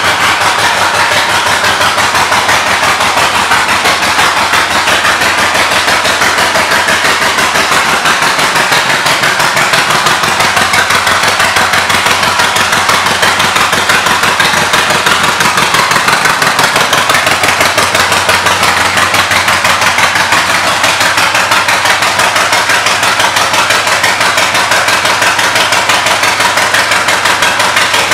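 2018 Harley-Davidson Softail Slim's Milwaukee-Eight V-twin idling steadily through Vance & Hines aftermarket pipes, its firing pulses even and regular.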